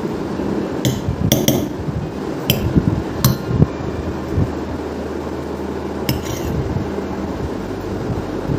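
Metal spoon clinking and scraping against a stainless steel container: several sharp clinks in the first few seconds and one more about six seconds in, over a steady low hum.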